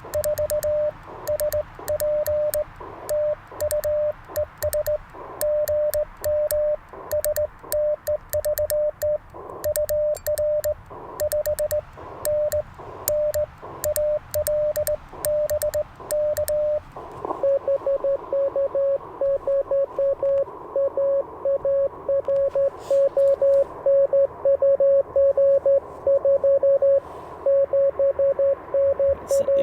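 Morse code from an Icom IC-705 transceiver. For about the first 17 seconds the operator keys his own reply, a steady sidetone near 600 Hz with the paddle key clicking on each element. Then a received CW signal takes over, a slightly lower-pitched and faster keyed tone over receiver hiss.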